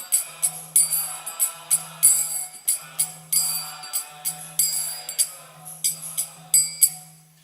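Kirtan instruments playing on without voices: ringing brass hand cymbals (kartals) struck about two to three times a second over held harmonium-like tones, tapering off near the end.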